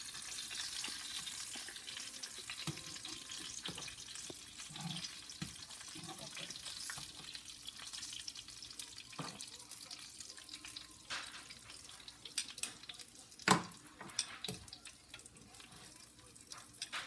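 Chicken cutlets frying in a pan: a steady sizzle of hot oil that eases off after a few seconds, with a few sharp clicks and taps in the second half.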